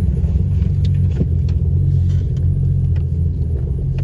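Turbocharged Nissan RB30 straight-six of a 1988 Holden VL Turbo running steadily on E85 ethanol, a deep low engine note with no revving.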